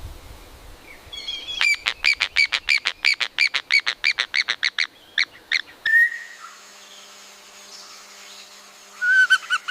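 A bird calling: a fast run of sharp, evenly repeated chirps, about six a second, for some three seconds, then a few separate notes and, near the end, another burst of calling.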